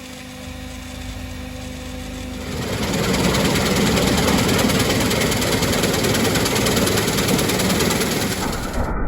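A large diesel engine idling with a steady hum, then growing much louder and rougher from about two and a half seconds in.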